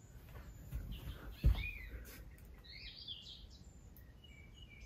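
Faint bird chirps in the background, with a single soft thump about a second and a half in.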